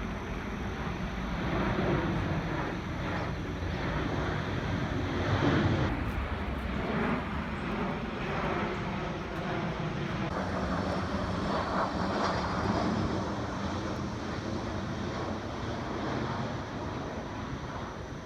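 Airplane flying overhead: a steady broad engine rumble that swells to its loudest about five seconds in, with a faint high gliding whine about twelve seconds in.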